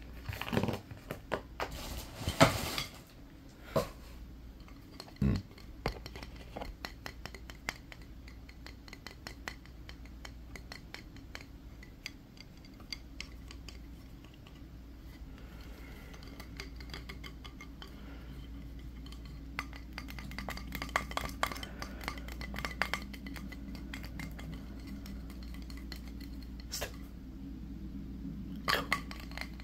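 Fingers tapping and scratching on wooden objects, a ribbed wooden block and then a small wooden bat, in a dense run of quick clicks. A few louder knocks come in the first seconds and again near the end.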